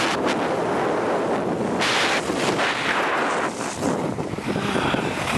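Wind rushing over the microphone of a camera moving fast down a ski slope, mixed with the hissing scrape of snow under the rider's edges, which swells about two seconds in.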